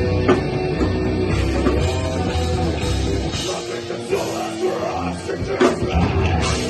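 Rock band playing live, with drum kit and guitars; the low bass end drops out for a moment about halfway through, then comes back.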